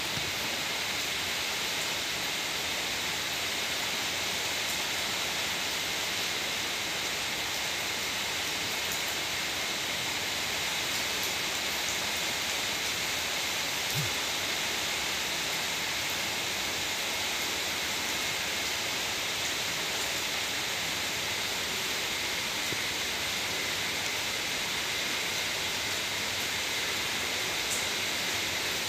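Steady, even ambient hiss that does not change, with a single faint knock about halfway through.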